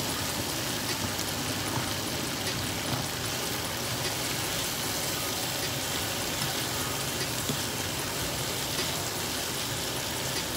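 Beef strips sizzling steadily in a hot frying pan, stirred now and then with a metal spoon.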